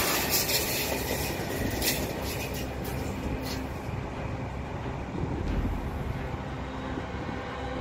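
KCIC400AF "Red Komodo" high-speed electric train passing at speed, a loud rush of wheels on rail and air with quick ticks. About four seconds in the hiss fades and the sound grows duller and quieter as the train draws away.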